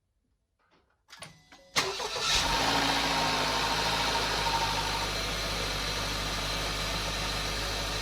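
2020 Acura RDX's 2.0-litre turbocharged four-cylinder engine cranking and catching about two seconds in, flaring briefly, then settling into a steady idle on its fresh oil.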